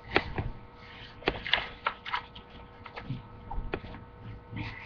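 A run of light clicks and knocks, about eight of them scattered unevenly, over a faint low background hum.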